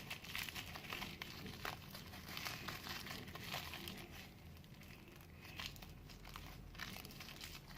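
Faint, irregular crinkling and rustling as a homemade stress ball is squeezed and handled.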